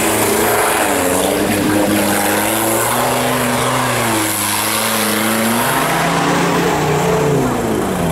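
Off-road 4x4 engines revving hard while churning through a mud pit, the pitch rising, holding and falling several times as the throttle is worked.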